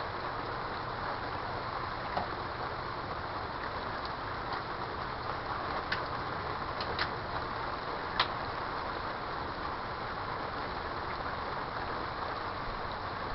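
Steady rain falling, a constant hiss with a few sharp drip ticks scattered through it, the loudest about eight seconds in.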